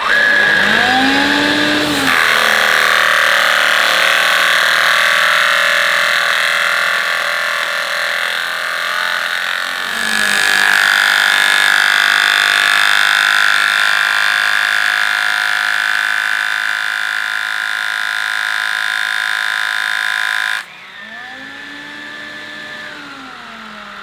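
AEG CX7 cordless stick vacuum running with its floor nozzle upturned and the BrushRollClean feature engaged: the motor spins up and the brush roll turns against its cutting comb, very noisy, cutting away the dog hair wrapped around it. About 20 seconds in the loud noise drops away to a quieter run, and the motor winds down near the end.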